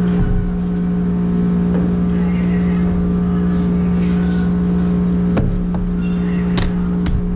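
Woodworking router motor running at a steady speed, a constant hum, with a few sharp clicks near the end.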